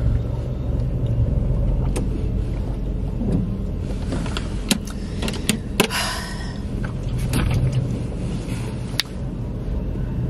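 Steady low rumble of a car heard from inside the cabin, with a few light clicks and knocks and a short breathy rush about six seconds in.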